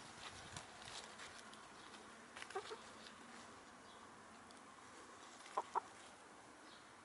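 Domestic hen clucking softly: a few short clucks about two and a half seconds in, then two louder short clucks close together near the end, with faint rustling in the grass between.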